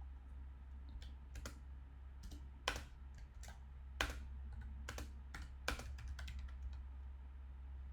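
Typing on a computer keyboard: irregular keystrokes, a few struck noticeably harder, over a steady low hum.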